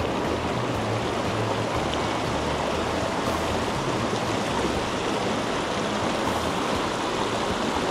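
Shallow mountain stream rushing steadily over rocks in a riffle, close to the microphone.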